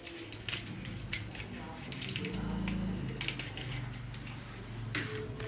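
Scattered light clicks and rustles of a phone's retail box and its small accessories being handled by hand, with a low hum coming in a little over two seconds in.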